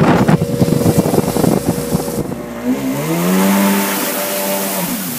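Wind and water rush from a moving motorboat, then a jet ski's engine running hard, its pitch rising and then dropping as it passes.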